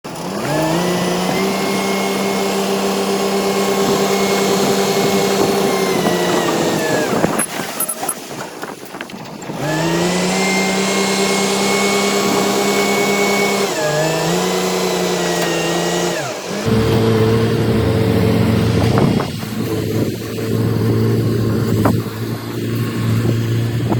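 Bulldozer's diesel engine revving up, holding high revs for several seconds under load and dropping back, twice, then briefly once more. From about two thirds of the way in, a lower, steadier engine note takes over.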